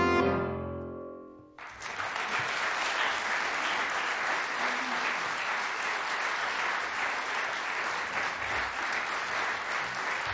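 The final chord of a grand piano and soprano saxophone dies away, and about a second and a half in an audience breaks into steady applause.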